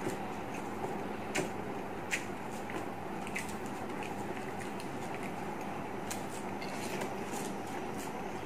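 Eating rice by hand from a paper wrapper: small scattered clicks of chewing and the crinkle of the paper under the fingers, over a steady background hum.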